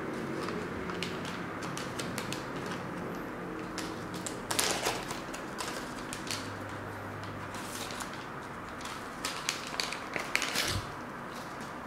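Scattered light clicks and taps, busiest about five seconds in and again near the end, with a low thump near the end, over a steady low room hum.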